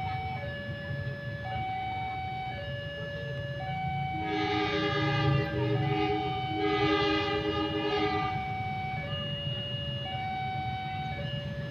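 Railway level-crossing warning alarm sounding a steady two-note, high-low pattern, each note held about a second, the signal that a train is approaching. Partway through, a train horn sounds two long blasts.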